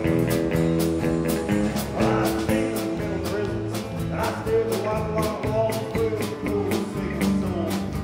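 Live band playing: strummed acoustic guitar, electric guitars and drum kit keeping a steady beat, with a man's lead vocal coming in about two seconds in.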